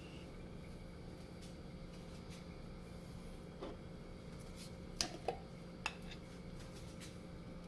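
A few light clicks and knocks of kitchen things being handled, about halfway through and again a little later, over a steady low hum.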